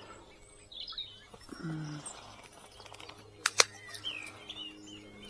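Small songbirds chirping and twittering, with two sharp clicks close together about three and a half seconds in.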